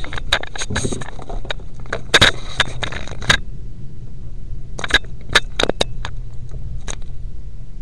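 Handling noise from a webcam being picked up and turned around: irregular clicks, knocks and short scrapes in two clusters, over a steady low hum.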